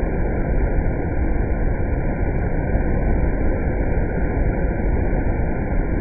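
Rushing whitewater of a waterfall churning between rocks, played back in slow motion so it comes out as a steady, deep, muffled rumble with the high hiss gone.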